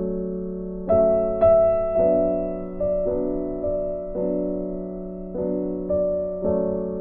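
Background piano music: a slow, gentle melody over sustained chords, each note struck and then dying away.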